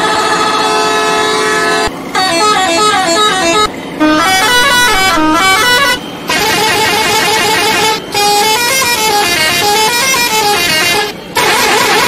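Multi-tone musical vehicle horns playing quick rising and falling tunes, in short phrases broken by brief gaps about every two seconds.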